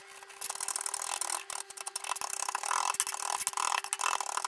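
Kitchen knife rapidly chopping and mincing fresh ginger on a cutting board: a fast, uneven run of blade taps against the board, over a faint steady hum.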